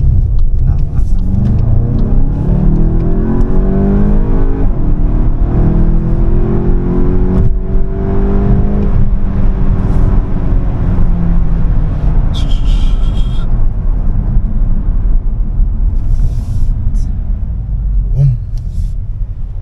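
Volkswagen Golf 8 GTI's 2.0-litre turbocharged four-cylinder, heard from inside the cabin under hard acceleration. The engine note climbs in pitch, drops at a gear change about five seconds in, climbs again, then settles as the car eases off.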